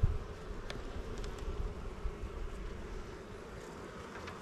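Honeybee colony buzzing steadily in an open hive as a frame is lifted out. There is a low bump right at the start and a few light clicks in the first second and a half as the wooden frames are handled.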